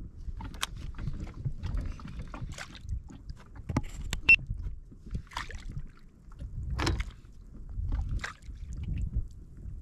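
Water sloshing and splashing against a kayak's hull, with a few sharp knocks and clicks from gear against the boat over a low uneven rumble.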